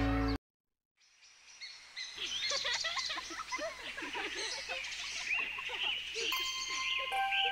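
A song's music cuts off right at the start, followed by a second of silence, then a chorus of small birds chirping and twittering fades in. Steady musical notes begin over the birds near the end.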